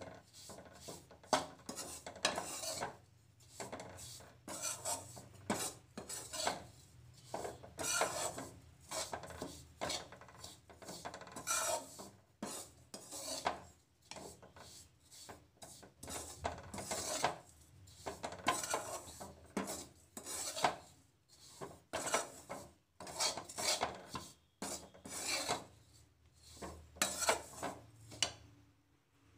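A metal spoon scraping and stirring bread crumbs around a steel kadhai, repeated rasping strokes about one or two a second, as the crumbs are lightly roasted in ghee.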